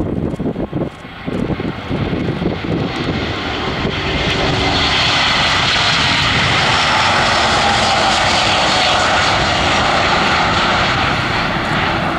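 Airbus A350-900's Rolls-Royce Trent XWB turbofans at takeoff thrust. A dense jet roar swells about three to four seconds in as the airliner rolls past, then holds loud and steady as it lifts off and climbs. Wind buffets the microphone in the first couple of seconds.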